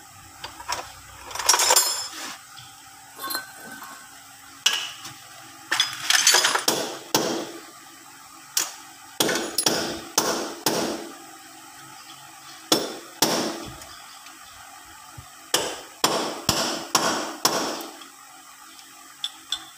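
Hammer blows on steel at a tractor's rear wheel hub: sharp metallic strikes in irregular bursts, each ringing briefly.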